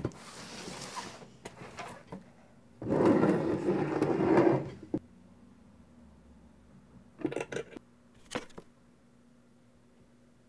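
Handling noises of a small wooden box on a wooden floor: a soft rustle at first, a loud rubbing scrape about three seconds in lasting under two seconds, then a few sharp clicks and knocks around seven to eight seconds in.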